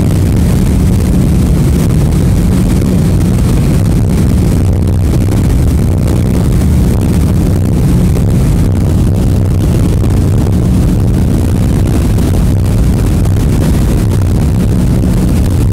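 Ferry's engines running steadily under way, a loud low drone, mixed with wind rushing over the phone's microphone on the open deck.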